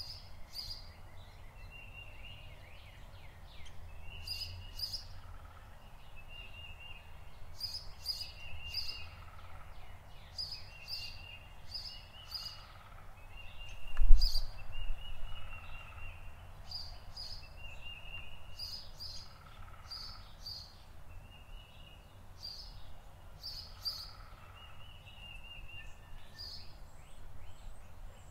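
A songbird singing the same short phrase over and over, a buzzy trill followed by a few sharp high notes, every second or two, over a steady low rumble. A single low thump comes about halfway through.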